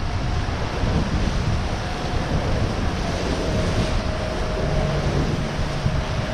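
Steady rush of wind and sea around an IMOCA racing yacht under sail, with wind buffeting the microphone. A faint thin whine holds in the background, sagging slightly in pitch.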